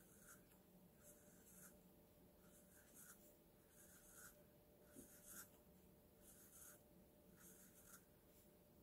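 Faint scratching of a Sharpie marker's felt tip on paper as small circles are inked, in short strokes about one a second.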